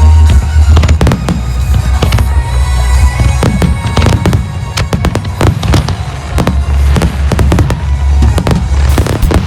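Aerial fireworks going off in rapid succession, many sharp bangs and crackles close together, over loud show music with a heavy bass.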